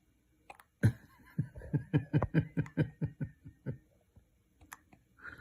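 A baby's sharp hiccup about a second in, then an adult's soft chuckle: a run of short, low laughs over about two seconds that fades out.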